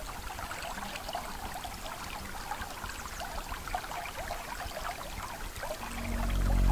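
Small woodland brook babbling and trickling over stones, a steady watery rush with quick splashy flecks. Soft music fades in near the end.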